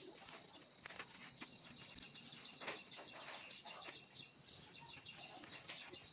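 Faint chirping of small birds. Now and then there is the rustle and snap of crisp mustard-green leaves being broken off by hand, with a few sharp clicks.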